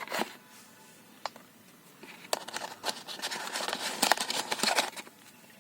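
Earbud packaging being handled: a couple of sharp clicks, then about three seconds of crinkling and rustling with quick clicks starting about two seconds in.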